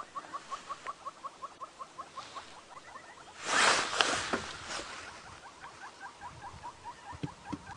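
An animal calling in a fast, even series of short chirps, about five a second. A brief hiss about three and a half seconds in is the loudest sound.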